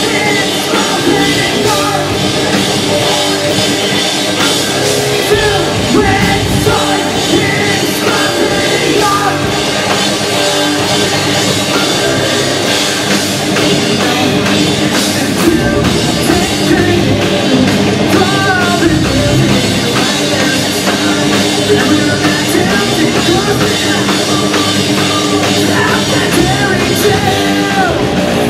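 Live punk rock band playing loudly and steadily: electric guitars, bass guitar and drum kit, with a male singer at the microphone.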